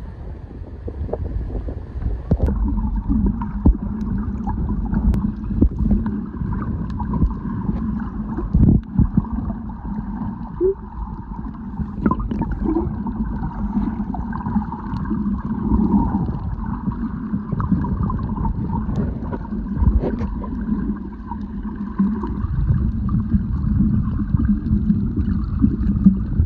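Muffled rumbling and gurgling of water close to the microphone, continuous, with a few short knocks.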